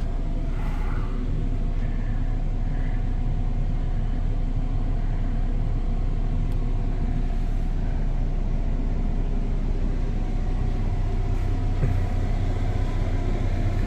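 Camper furnace's blower motor, freshly replaced, running with a steady hum.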